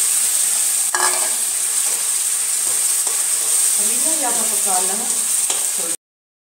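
Tomato purée sizzling loudly as it fries in hot oil with onion paste in a steel kadhai, with a single click about a second in; the sound cuts off suddenly near the end.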